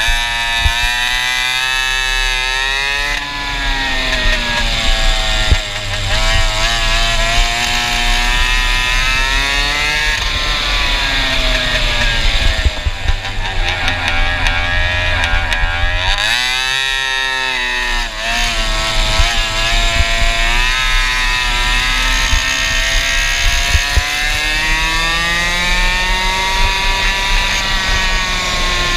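Go-kart engine running through a Stinger exhaust at full race pace. Its pitch climbs steadily as it accelerates, then drops sharply when the throttle is lifted, about four times over.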